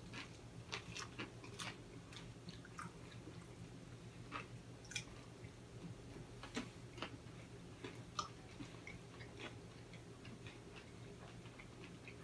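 People quietly chewing waffle-iron-cooked macaroni and cheese eaten by hand, with scattered soft clicks and smacks, over a faint steady low hum.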